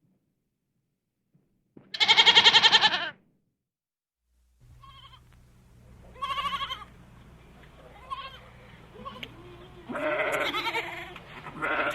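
Goats bleating: one loud, quavering bleat about two seconds in, then after a pause a run of shorter bleats of different pitches, some high and some low, over a steady low hum.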